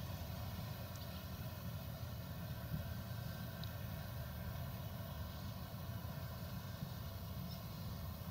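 Claas Lexion 770 TT combine harvester working a field, its engine and threshing machinery giving a steady low drone with a faint even whine above it.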